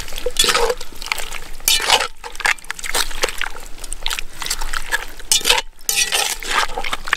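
Liquid food in a cast iron Dutch oven being stirred while it bubbles: a run of irregular wet sloshing and scraping sounds.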